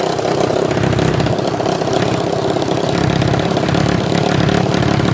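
Small engine of a homemade go-kart running steadily with a fast, even firing rhythm as the kart drives along the road, towing a trailer.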